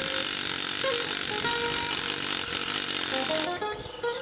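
Pneumatic air hammer drilling a wedge hole into basalt: a steady, high, dense chatter that cuts off about three and a half seconds in.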